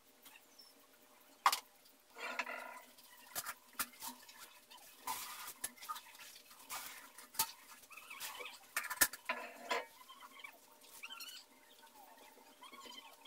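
Marker pen drawing on paper: several short scratchy strokes, with a few sharp clicks in between.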